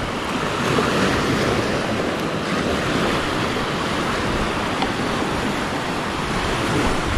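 Small surf waves washing and breaking in the shallows of a sandy beach, a steady rushing of water, with wind rumbling on the microphone.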